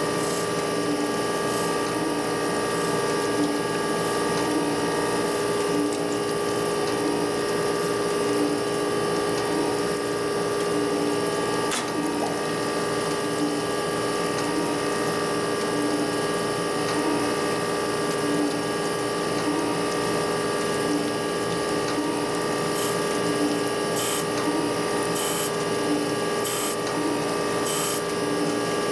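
Surface grinder running: a steady machine hum with a regular pulse, and flood coolant splashing while the wheel grinds hardened tool-steel cam followers. In the last few seconds, short hisses repeat about once a second.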